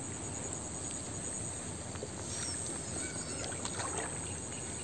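Water sloshing and splashing as a man wades through a shallow muddy pond, with a few faint bird chirps over a steady outdoor hiss.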